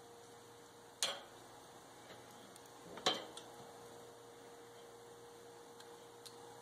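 Metal tongs clicking against a charcoal kettle grill's steel cooking grate as meat is shifted on it: two sharp clicks, about a second in and about three seconds in, with a few fainter ticks. A faint steady hum runs underneath.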